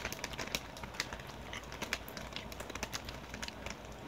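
Mouth crunching of ketchup-flavoured Doritos tortilla chips being chewed, a string of irregular crisp crackles.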